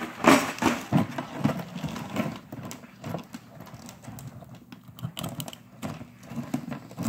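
Live blue crab being cleaned by hand: irregular clicking and crackling of shell and legs.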